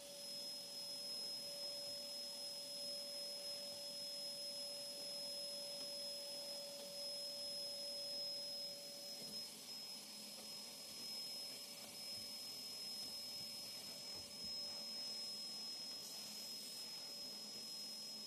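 Faint steady background hiss with a constant high-pitched whine and a fainter, lower steady tone, unchanging throughout.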